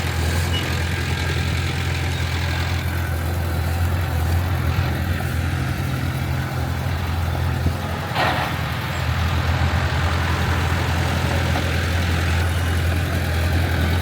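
Heavy diesel engine of earthmoving equipment running steadily at a low, even drone, with one short hiss about eight seconds in.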